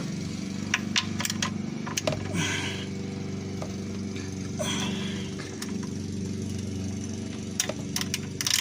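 A steady low engine-like hum, with scattered clicks and light metallic knocks as a 17 mm socket wrench is worked on the oil drain plug.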